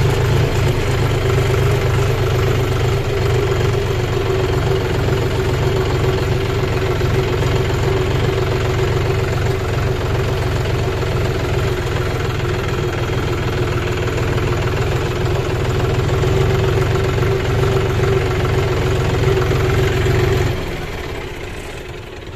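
John Deere 5039D tractor's three-cylinder diesel engine running steadily, heard from the driver's seat; its deep note cuts off suddenly near the end.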